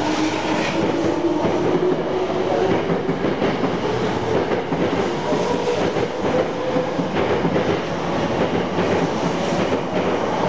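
Toyo Rapid Railway 2000 series electric train pulling out and gathering speed past the platform. Its traction motor whine rises steadily in pitch over the first half, and the wheels click over rail joints as the cars go by.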